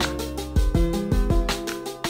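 Background music with a steady beat, a bass line and short melodic notes.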